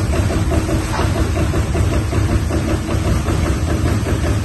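TRUMPF TruPunch 5000 CNC punch press working sheet metal: a rapid, even train of punching strokes over a steady low machine hum.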